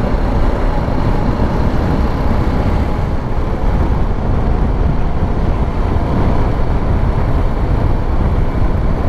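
Motorcycle being ridden along an unpaved track: a steady rush of wind on the microphone over the bike's running engine.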